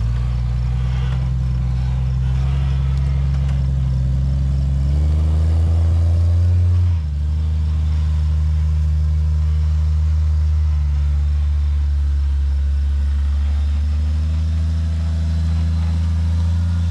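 Jeep XJ-based rock buggy's engine working under load as the buggy crawls up a steep rutted bank. The revs climb about five seconds in and drop back sharply about two seconds later, then hold fairly steady.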